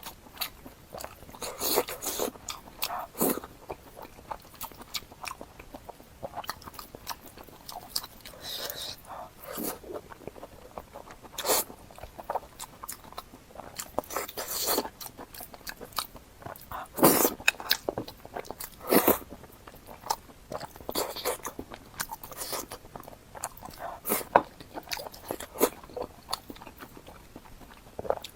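Close-miked mouth sounds of a person eating: irregular bites and chewing, with a few louder bites scattered through.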